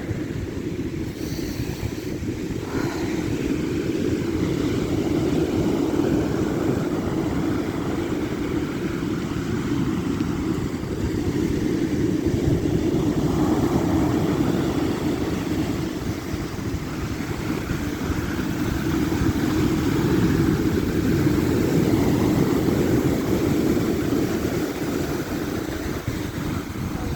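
Strong wind blowing on the microphone over sea surf washing onto the beach, swelling and easing every several seconds.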